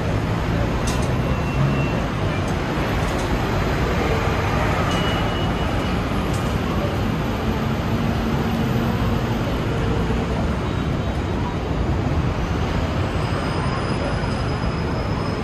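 Steady urban vehicle noise: a continuous, even rumble and hiss with no single event standing out.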